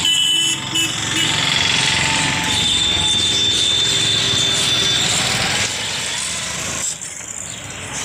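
Background music ending in the first second, then a motor vehicle's engine running close by on the street, with a steady high tone for a couple of seconds midway; it fades after about six seconds, leaving general street noise.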